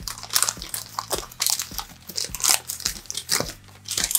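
Brown wrapping paper crinkling and rustling as hands work at a paper-wrapped parcel, in irregular crackles.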